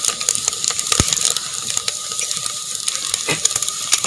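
Chopped coconut, shallots and dried red chillies sizzling in hot oil in a pan, a steady hiss full of small crackling pops, with one sharper click about a second in.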